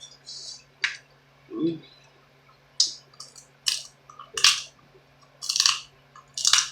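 Close-miked eating sounds of a seafood boil: irregular wet, crackly clicks and smacks of chewing and biting, about a dozen short bursts, with a brief closed-mouth hum about 1.7 s in.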